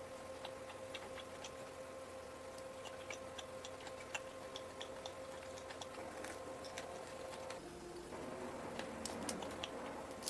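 Close-up eating sounds of soft donuts being bitten and chewed: scattered wet mouth clicks and smacks over a faint steady hum.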